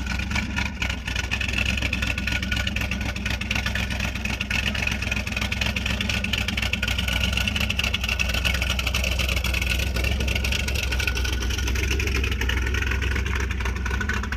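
A vehicle engine running steadily, a continuous low drone.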